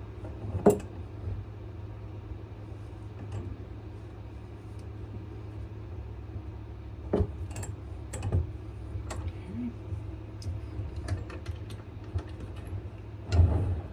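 Scattered light clicks and taps from handling a knife and vise during hand sanding, with a sharper knock less than a second in and a cluster near the end, over a steady low hum.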